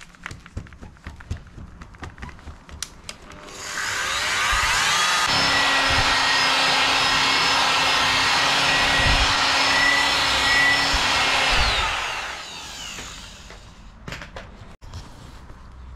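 Power tool spinning a foam polishing pad on a car headlight lens with fine polishing paste: it spins up with a rising whine about three and a half seconds in, runs steadily for about eight seconds, then winds down. A few light handling clicks come before it starts.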